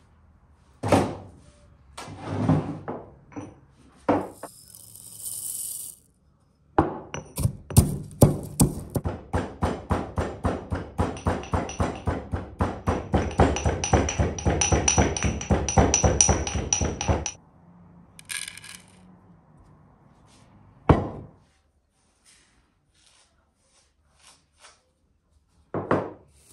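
Scattered single knocks, then a fast run of knocks and clinks, about four or five a second for some ten seconds, with a faint ringing tone in its later part, then a few more single knocks; the sound of hand work with kitchen utensils.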